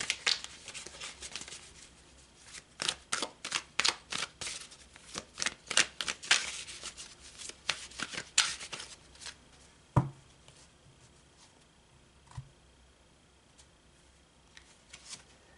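Oracle cards being shuffled by hand: a quick, irregular run of card flicks and slaps, then a single knock about ten seconds in and a few soft card sounds after.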